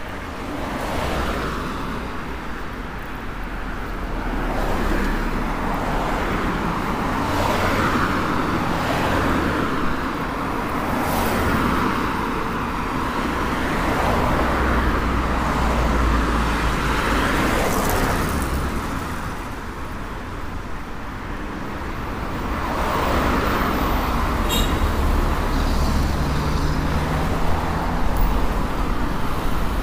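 Street traffic: cars passing one after another on the road alongside, each swelling and fading, over a constant low rumble.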